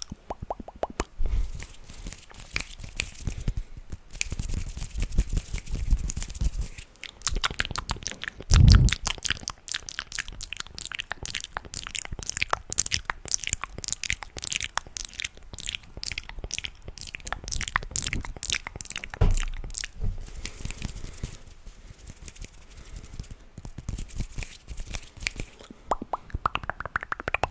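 ASMR mouth and hand sounds: dense runs of quick clicks, pops and crunchy taps, with a heavier thump about nine seconds in and another near twenty seconds.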